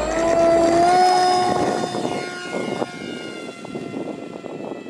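Electric RC model jet's 2450 kV brushless motor and 5-inch pusher propeller whining at full throttle on takeoff. The whine rises in pitch for about the first second, holds steady, then fades as the plane flies off.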